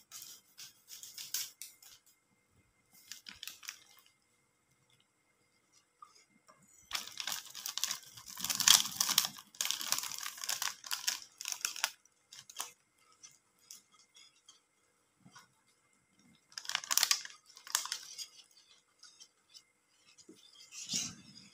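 Sachets of agar-agar and Nutrijell jelly powder being torn open and handled, the packets crinkling in several short bursts, the longest and loudest lasting about five seconds from about seven seconds in, as the powder is shaken into a pan of coconut milk. Near the end a wire whisk stirs briefly in the pan.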